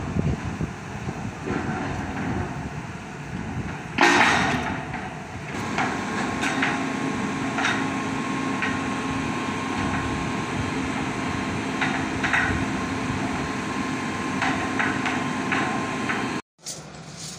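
Rotary auger piling rig drilling: its engine running steadily, with a loud metallic clatter about four seconds in and scattered metallic knocks and clanks after it, over a steady whine. The sound cuts off suddenly near the end.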